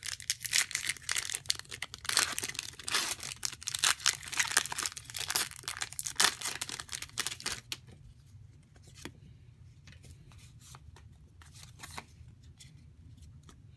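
Plastic Pokémon booster pack wrapper crinkling and tearing open, a dense crackle of rips for about the first eight seconds. After that it is much quieter, with a few soft clicks as the cards are handled.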